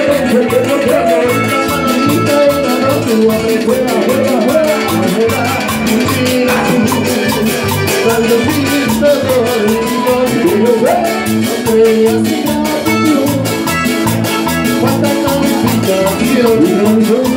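Band playing loud, amplified Latin dance music, with a steady pulsing bass beat, fast high ticks from a shaker-like rhythm and a wavering melodic line over the top.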